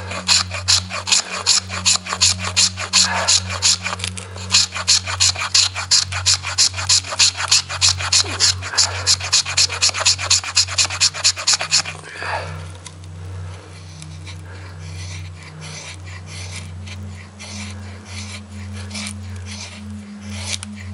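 Knife blade scraping a stick of resin-rich pine fatwood to raise shavings and dust for fire tinder. Fast, even rasping strokes, about four a second, for the first twelve seconds or so, then softer, sparser strokes.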